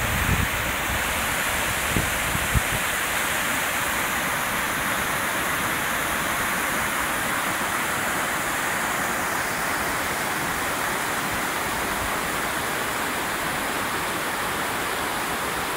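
Whitewater rushing and cascading over rocks and fallen branches below a dam at a fishway: a steady, unbroken rush of water. A couple of brief low thumps come about two seconds in.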